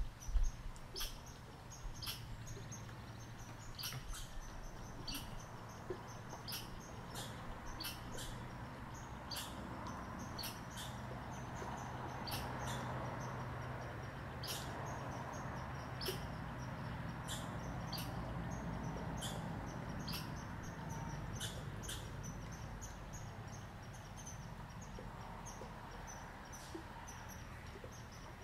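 Outdoor ambience: a steady low hum and a soft wash of background noise, with irregular sharp, high-pitched ticks and clicks about once or twice a second.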